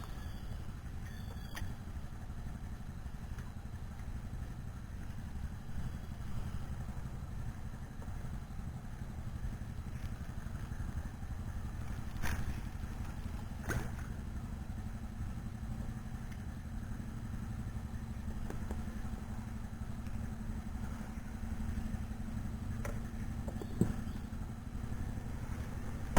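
Small boat's motor running steadily, a low rumble, with a few brief knocks.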